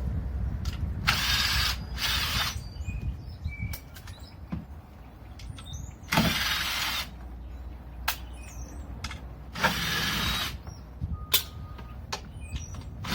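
Cordless power driver running in four short bursts, about half a second to a second each, undoing fasteners, with small clicks of handling in between.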